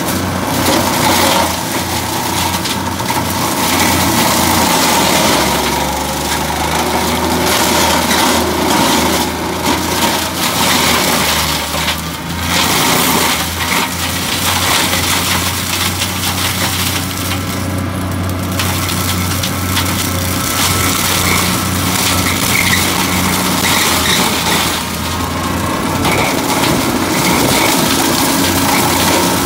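Vandaele Forestmaster forestry mulcher, PTO-driven by a 50 hp compact tractor, shredding brush and saplings: continuous crunching and crackling of wood being pulverised, over the tractor engine's steady drone.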